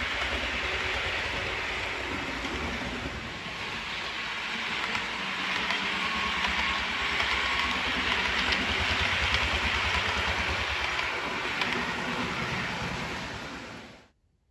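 Hornby OO gauge Class 370 APT model train running along the layout track: a steady whirr of motor and wheels on the rails with a fast low rattle. The sound cuts off suddenly near the end.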